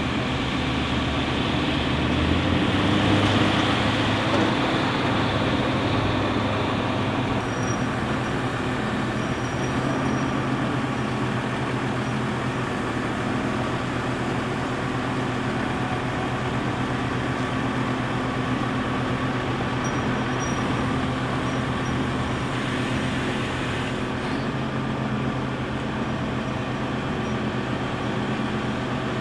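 Truck-mounted container washing machinery running steadily: a hum of engine and pumps with a dense hiss over it, which thins out about seven seconds in.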